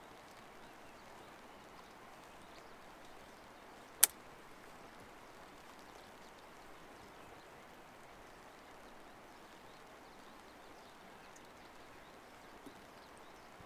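Faint steady outdoor hiss, with one sharp click about four seconds in and a faint tick near the end, from gear being handled at the back of a camper van.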